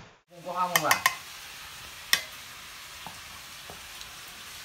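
Steel ladle stirring a pot of meat curry, with sharp clinks of the ladle against the steel pot, roughly one a second, over a steady low hiss. A brief vocal sound with a bending pitch comes about half a second in.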